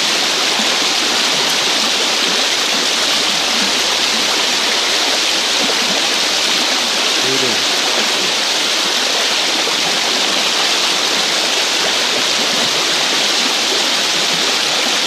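Shallow, fast-flowing river rushing steadily, a loud, even sound of moving water.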